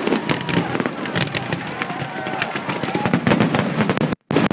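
Fireworks going off in a dense, rapid barrage of pops and crackles. The sound cuts out for a split second near the end.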